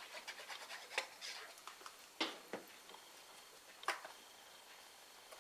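Faint paper handling: a small piece of patterned cardstock rustling as liquid glue is applied and it is pressed onto a card box, with a few light clicks and taps, the sharpest a little after two seconds and just before four seconds.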